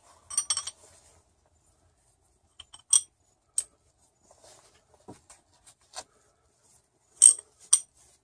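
Scattered metallic clicks and clinks in a few short groups from a freshly oiled socket ratchet being worked by hand to spread the oil through its mechanism.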